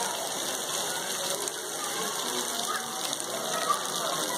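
Steady rain falling on wet stone paving and benches, an even hiss, with one brief louder tick near the end.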